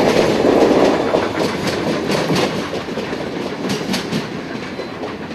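Union Pacific passenger cars rolling past, their wheels clicking over rail joints in quick clusters. The rumble fades as the last car goes by.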